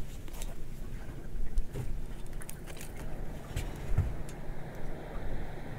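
Small boat on the water: a steady low rumble with scattered sharp knocks and clicks.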